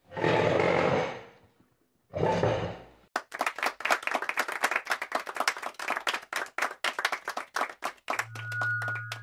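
Title-intro sound effects: two short noisy whooshes, then about five seconds of rapid, irregular clicking and crackling that thins out, ending in a low electronic hum with thin high beeping tones.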